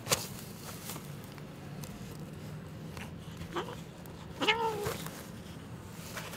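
A sick stray cat meows once, a short call that rises and falls in pitch about two-thirds of the way in, with a fainter, shorter call just before it. A sharp click sounds right at the start.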